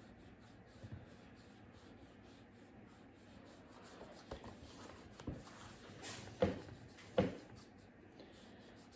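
Paintbrush brushing watery paint over paper in soft rubbing strokes, with a few light knocks, the two loudest about six and a half and seven seconds in.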